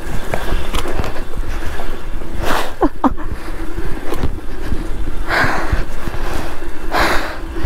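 Heavy, panting breaths every second or two over wind buffeting and rumble on the microphone, with a short falling squeak about three seconds in.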